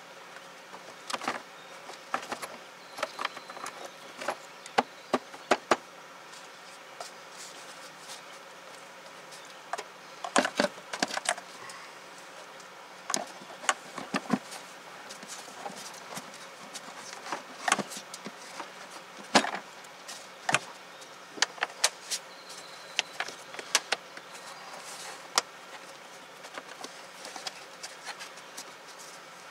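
Scattered plastic clicks and knocks from an air filter being seated in the air box and the box lid and intake hose being fitted back on, some in quick clusters, over a faint steady hum.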